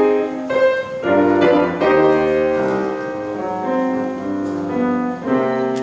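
Piano playing the introduction of a slow song, sustained chords with a new chord or note about every second.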